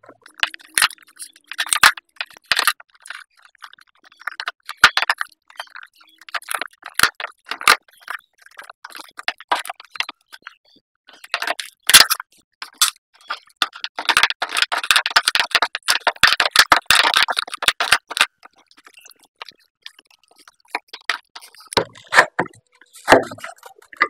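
Foam insulation being picked and pulled out from around the thermostat of an electric geyser tank: irregular crackling, scraping and sharp clicks. About the middle there is a denser stretch of crackling lasting a few seconds.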